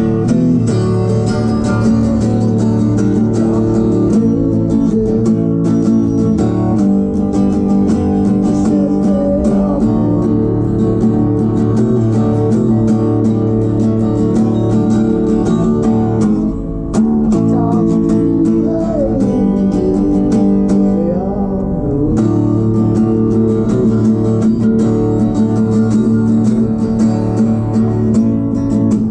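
Background music: a song with strummed acoustic guitar and singing.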